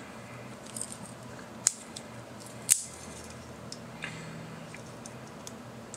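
Small metal clicks from handling a Leatherman ES4 Squirt multitool as its parts are worked open: two sharp clicks about a second apart near the middle, with a few fainter ticks around them, over a faint steady hiss.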